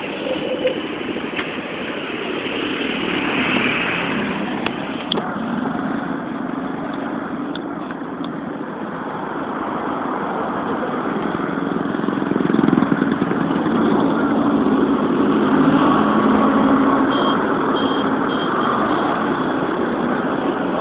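Traffic noise heard from a moving vehicle: a bus and motorcycles running close by, with steady road rumble that grows somewhat louder in the second half.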